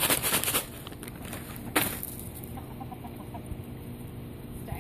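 Backyard chickens clucking softly in short, faint notes. A burst of crackling comes in the first half-second and a single sharp crack comes about two seconds in.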